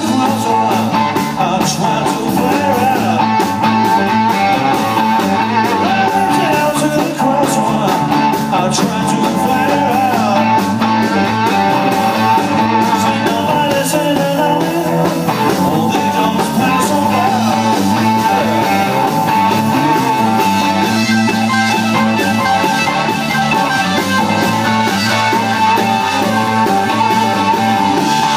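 Live rock trio playing a blues-rock song: electric guitar through a Marshall amp, bass guitar and drum kit, loud and continuous.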